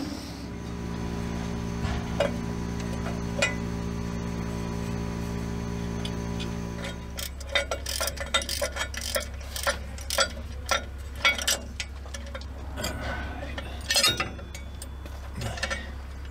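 A steady machine hum runs for about seven seconds and then stops. After it comes a run of irregular sharp metallic clicks and clinks as small steel brake hardware is handled and fitted.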